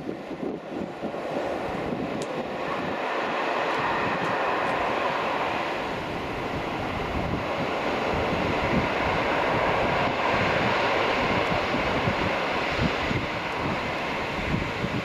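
Freight train of tank wagons rolling out of a tunnel along the line below, a steady rail and wheel noise that builds over the first few seconds and then holds. Wind buffets the microphone throughout.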